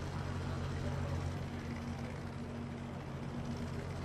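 Steady low helicopter drone with a faint hiss, unchanging throughout.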